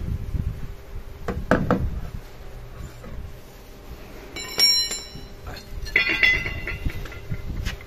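A few sharp knocks, then two ringing clinks of hard objects, one about four and a half seconds in and one about six seconds in, over low handling rumble.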